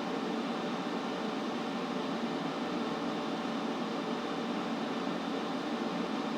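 Steady white-noise hiss, even and unchanging, fullest in the low middle range.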